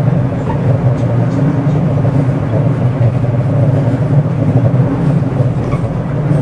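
Interior running sound aboard a JR Kyushu 415-series electric train, recorded in motor car MoHa 414-126: a steady, even rumble of the train rolling along the line.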